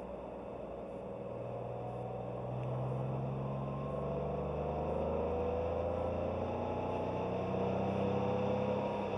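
Porsche 911 Carrera 3.2's air-cooled flat-six engine running on the move, its note climbing slowly as it pulls harder from about three seconds in.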